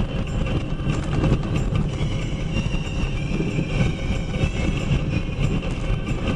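Steady rumble and rattling of a moving vehicle, with a faint high tone held through the middle.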